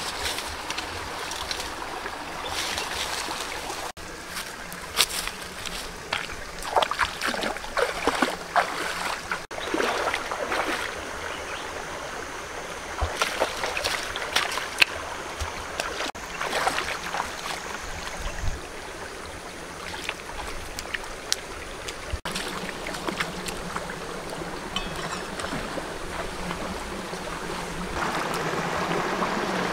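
Footsteps and rustling of leaves and grass as someone pushes through dense undergrowth, heard as irregular crackles over a steady background hiss. Near the end a shallow stream's flowing water comes in louder, with a bare foot splashing in it.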